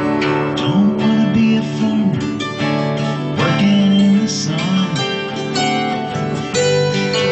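Acoustic guitar strummed together with a hammered dulcimer, its strings struck with hammers, while a man sings a slow melody over them.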